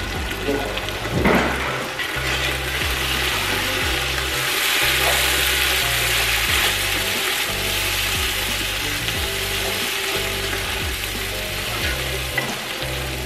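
Diced carrots, onion, celery and garlic sizzling steadily in butter and olive oil in a stockpot on medium heat, stirred with a wooden spatula, with the sizzle fullest a few seconds in. Background music with a steady bass line plays underneath.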